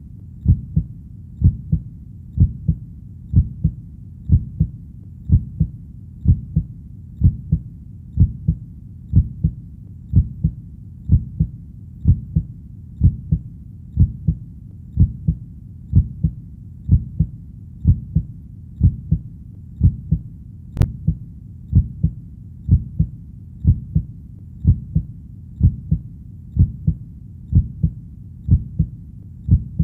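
Heartbeat: a steady, deep double thump (lub-dub), about one beat a second, in an even rhythm.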